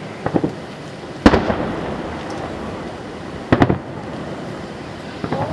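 Aerial firework shells bursting overhead: a couple of small pops just after the start, a loud bang about a second in, another about two seconds later, and a cluster of bangs near the end, each followed by a rolling echo.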